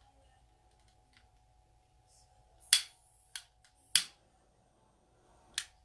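A hand-held lighter clicking four times, short sharp snaps about a second apart, as it is struck to light a candle.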